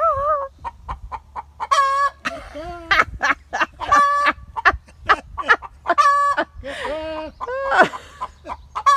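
Hen's egg-laying cackle: a run of short clucks broken by loud, drawn-out squawking calls, repeated over and over. A lower voice imitates the calls a couple of times.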